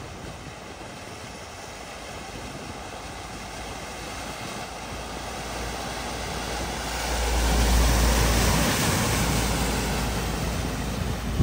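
A vehicle driving through floodwater, its engine and the splashing of water building as it approaches. It passes loudest about eight seconds in, then fades.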